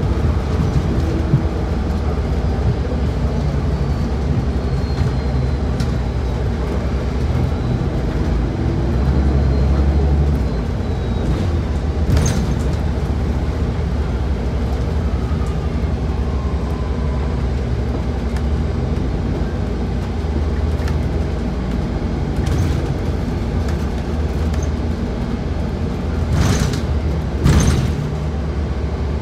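A New Flyer XDE40 diesel-electric hybrid city bus under way, heard from inside: a steady engine and drivetrain rumble with road noise, which swells briefly about ten seconds in. A sharp clatter comes about twelve seconds in and two more near the end.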